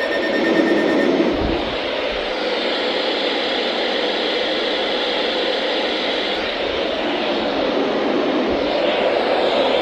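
Steady, loud hiss of broadcast static with no programme audio, the sound of a station's signal gone off the air.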